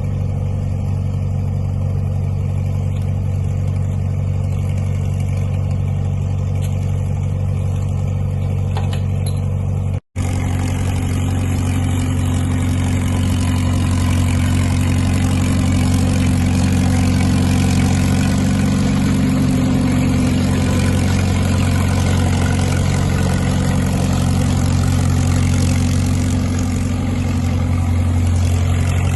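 Caterpillar crawler dozer's diesel engine running steadily while dragging snow trails. A brief dropout about a third of the way through is an edit cut, and the engine sound continues after it.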